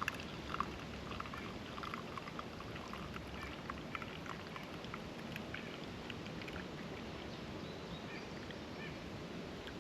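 Eggs and turkey sausage sizzling in a cast iron skillet: a steady hiss with many small, irregular crackles.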